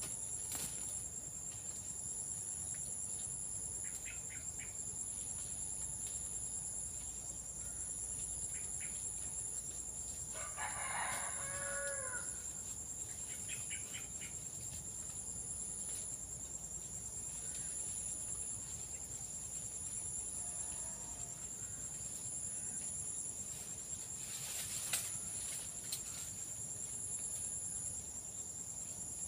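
Steady, high-pitched insect chorus, one part of it pulsing. A rooster crows once about eleven seconds in, and there are a few short bird chirps and a single brief knock near the end.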